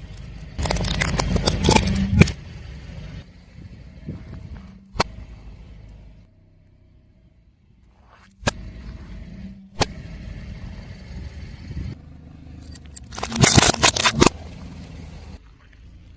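A car tyre rolling over and crushing crunchy objects, with two loud bursts of crackling and snapping, about a second in and again near the end. A low rumble from the car runs under them, and a few single sharp cracks fall between the bursts.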